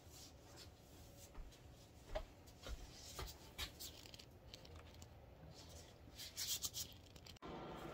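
Faint rustling and light clicks of gloved hands handling things at a kitchen counter, with a brief louder rustle about six seconds in.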